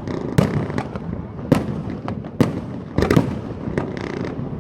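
Fireworks going off: a string of sharp bangs at irregular intervals, about one every second, with rumbling echoes between them.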